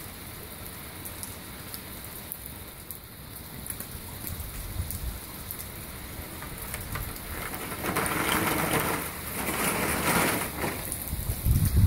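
Heavy rain falling on brick paving and garden beds: a steady hiss flecked with the ticks of individual drops. The noise swells louder for a few seconds near the end, with a low thump at the very end.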